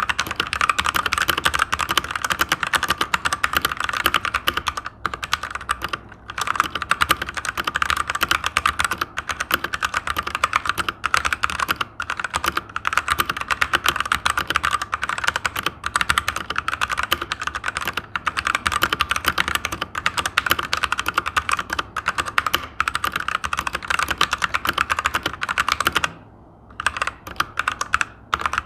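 Fast continuous typing on a Machenike K500 hot-swap mechanical keyboard, a dense run of keystroke clacks with a few brief pauses, the longest near the end.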